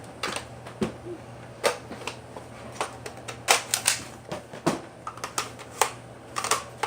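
Irregular sharp plastic clicks and clacks of a Nerf blaster being handled and worked, some coming in quick pairs.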